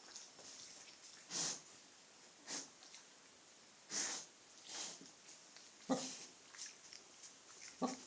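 Four-day-old piglets snuffling and sniffing: about six short, breathy snorts at irregular intervals, a couple with a low grunt in them.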